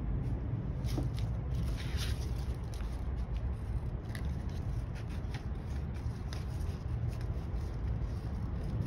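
Paper being handled and cut: scattered light rustles and clicks, over a steady low hum.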